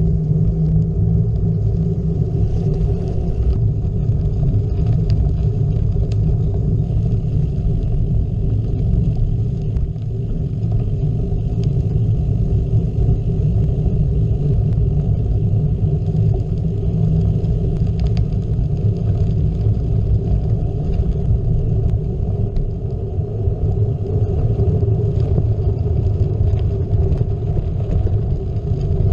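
Steady, muffled rumble of a gravel bike's tyres rolling over a dirt-and-gravel road, the road vibration picked up by a bike-mounted GoPro.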